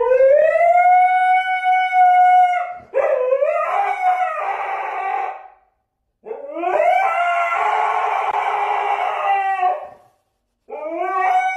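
Siberian husky howling: three long howls, each sliding up into a held note, with a fourth starting near the end.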